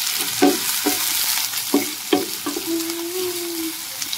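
Chopped onions sizzling in hot oil with cumin in a nonstick kadhai, stirred with a wooden spatula that scrapes across the pan several times in the first two seconds.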